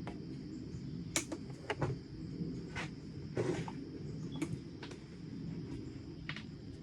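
Hand clippers snipping: a series of about eight short, sharp clicks and snips at irregular spacing, over a steady low rumble.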